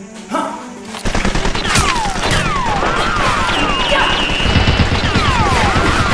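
Rapid automatic gunfire sound effect, a dense burst of shots that starts about a second in and keeps going. Repeated falling whines run over the shots.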